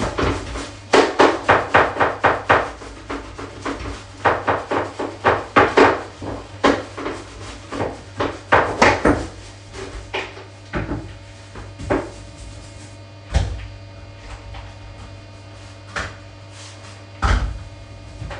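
Scrubbing strokes against a bathtub, in quick runs of rubbing and knocking, thinning out to a few separate strokes after about ten seconds. A steady low hum runs underneath.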